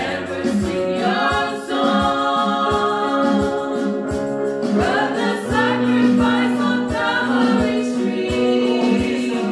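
Gospel song sung by a small group of singers, accompanied by an electric keyboard, with a steady beat of about two a second.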